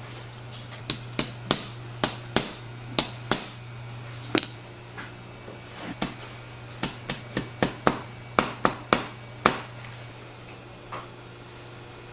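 Small hammer tapping a tight-fitting part onto the top of an umbrella shaft: about twenty sharp taps in uneven runs, with a short pause midway. A steady low hum runs underneath.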